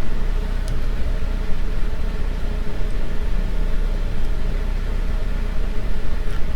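Steady low hum and hiss of background noise on the narrator's microphone, with a couple of faint clicks, about a second in and near the end.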